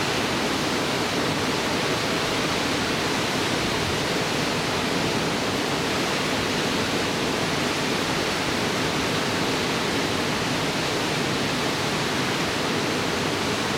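Steady rush of river water, an even noise that holds the same level throughout.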